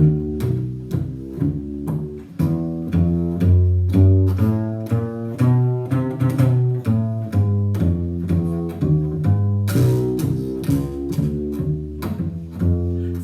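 Double bass played pizzicato, with the strings plucked by the fingers: a steady run of short, deep notes making a bass line.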